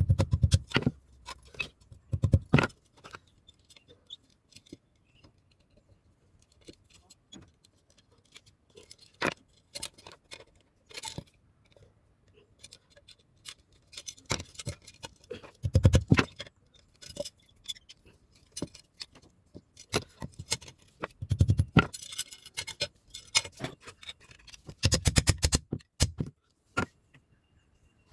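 Metal clinking and knocking from knife-making work: irregular light metallic taps and rattles, with a few heavier thumps about two seconds in, around the middle, and near the end.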